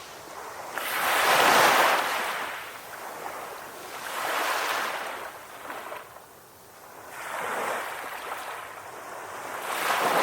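Sea waves breaking and washing up the shore, the surf swelling and fading in about four surges, the strongest about a second and a half in.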